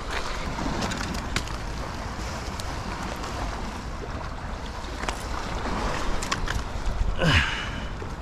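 Wind buffeting the microphone over surf washing against rocks, with a few sharp clicks and taps and a short falling sound near the end.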